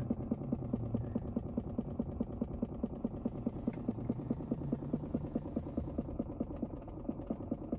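A rapid, even mechanical pulsing, several beats a second, over a low hum, from somewhere up front in a 2022 Chrysler Pacifica Hybrid while the vehicle is switched off; the source is unidentified.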